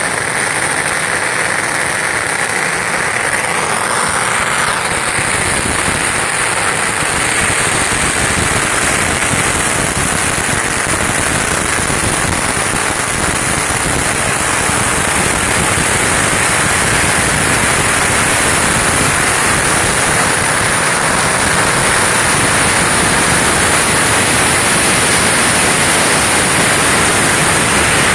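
Long strings of firecrackers going off in a rapid, unbroken crackle, a little louder in the second half.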